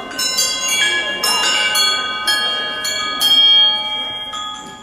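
Dance music built on struck bell-like chimes, a new ringing note every third to half second, each tone ringing on under the next.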